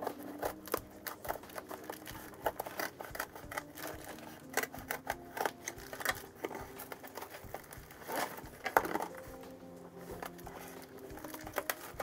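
Scissors snipping and cutting through a taped cardboard parcel, with sharp clicks and crinkles of packing tape and cardboard; the loudest snap comes about nine seconds in. Soft background music plays underneath.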